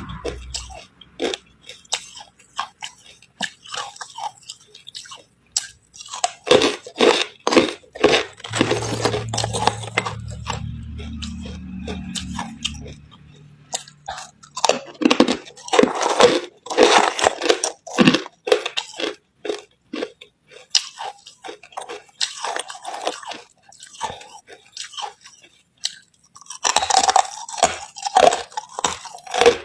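Ice being bitten and chewed: runs of crisp crunches in several clusters, with quieter pauses between them.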